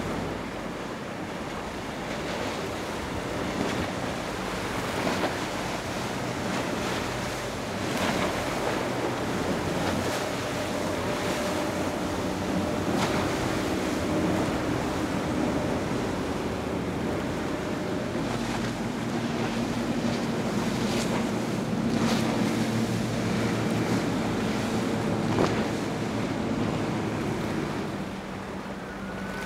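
Fishing boats running fast through an inlet: a steady engine drone over the wash of surf and wind on the microphone. One boat's engine is heard through the first half, then another boat's lower engine note takes over until shortly before the end.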